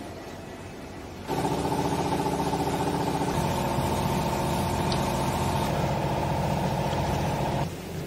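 A machine motor runs steadily and evenly with a hum of several tones. It switches on abruptly about a second in and cuts off abruptly near the end.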